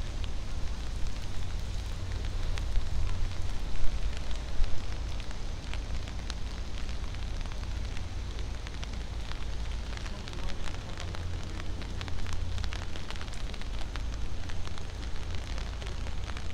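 Rain pattering and dripping, heard as many scattered sharp ticks over a steady hiss, above a low constant rumble.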